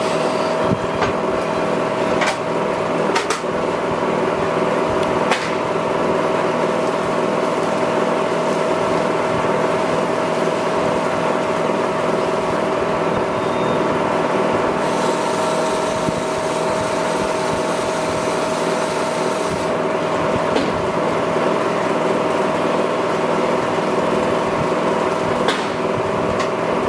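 Electric bench motor running steadily with a humming tone, spinning a cloth buffing wheel, while a hand-turned ebonite pen part is pressed against it and rubs on the wheel as it is polished. A few sharp clicks stand out, two near the start and one near the end.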